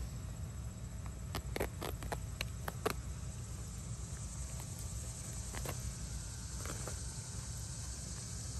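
Weed-control landscape fabric crinkling and rustling as it is bunched up and cut with a knife, a cluster of crackles in the first few seconds and a few more later. Insects keep up a steady high hiss behind it, over a low rumble.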